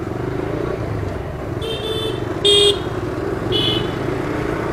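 Motorcycle engine running steadily while riding through street traffic, with short high-pitched vehicle horn beeps: a double beep a little before two seconds in, the loudest honk at about two and a half seconds, and one more near four seconds.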